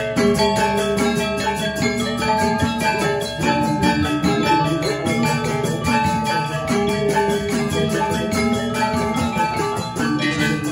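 Balinese gamelan gong ensemble playing: bronze metallophones and gongs struck with mallets in a fast, even rhythm over ringing sustained tones.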